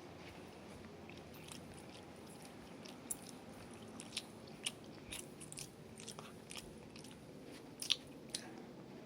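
Someone chewing and biting food, heard as scattered small clicks and crunches over a quiet room background, with the sharpest click near the end.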